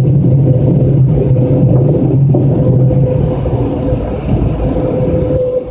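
Automatic car wash machinery, most likely the blower dryers at the tunnel exit, running with a loud, steady roar and a steady hum, heard from inside the car. The deep part of the roar eases a little about three seconds in.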